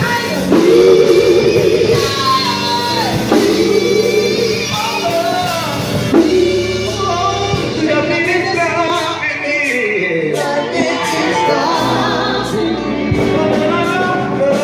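Gospel vocal group, women and men, singing in harmony into microphones with vibrato, backed by keyboard and drums.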